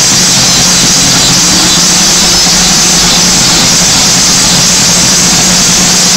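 Drum and bass DJ set over club speakers in a beatless breakdown: a loud, steady wash of distorted noise over a low drone, with no drums.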